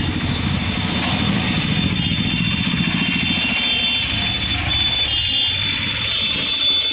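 Auto-rickshaw engine running as the three-wheeler drives through town traffic, heard from inside the open cabin with road noise, and a thin high whine over it from about a second in.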